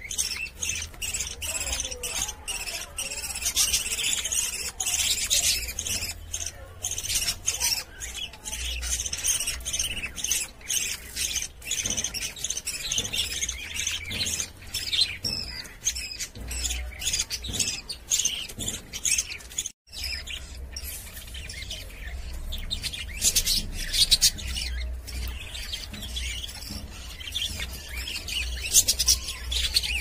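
A flock of budgerigars chattering and chirping, many quick high chirps overlapping without pause, with a brief break about twenty seconds in.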